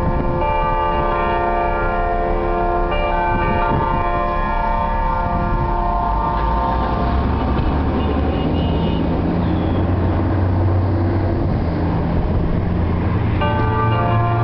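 Church bells chiming in sustained, overlapping ringing tones, a chime that sounds different from its usual one. From about six seconds in, a vehicle's low engine rumble covers the bells until they come back through near the end.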